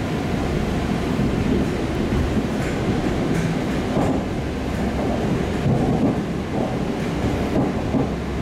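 EP2D electric multiple unit running between stations, heard from inside the car: a steady low rumble of wheels and running gear, with a few faint knocks.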